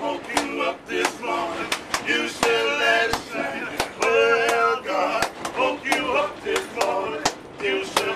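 A man singing, with wavering sustained notes, over sharp percussive beats that come several times a second.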